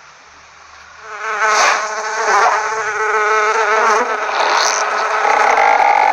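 Stylized cartoon fly buzzing loudly, its pitch wobbling, starting about a second in. A second, steadier buzz joins near the end.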